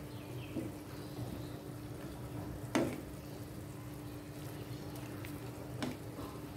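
Watery chicken curry simmering in a frying pan while a wooden spatula stirs it. Two sharp knocks of the spatula on the pan come about three seconds in and near the end, over a steady low hum.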